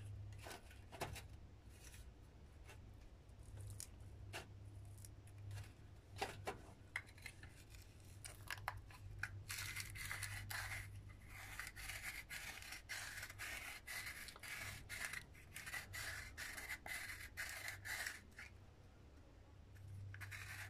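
Hand-held herb grinder being twisted to grind dried cannabis, with faint crunching clicks. The clicks are sparse at first, then about halfway through they turn into a fast, dense run as the teeth cut through the bud.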